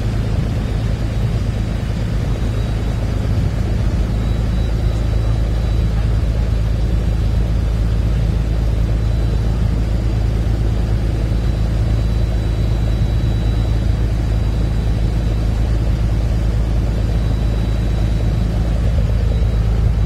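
Boat engine running steadily under way, a continuous low rumble mixed with wind and water noise, with a faint steady high whine over it.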